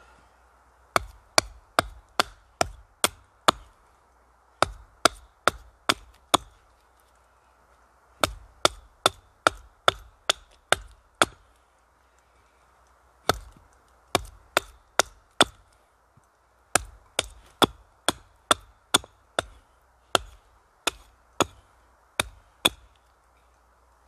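Small hatchet chopping into the end of a branch held upright on a wooden block, shaping a point on it: sharp strikes about two or three a second, in runs of five to a dozen strokes with short pauses between.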